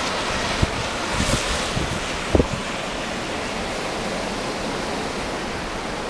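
Blizzard wind blowing steadily, swelling in a gust about a second in, with wind buffeting the microphone in a few short low thumps.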